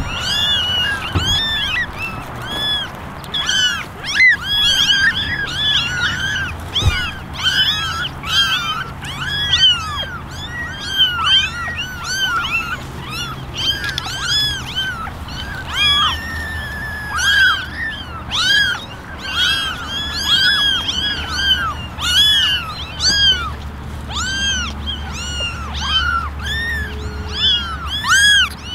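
A litter of young kittens meowing: many short, high-pitched calls overlapping almost without a break, each one rising and then falling in pitch.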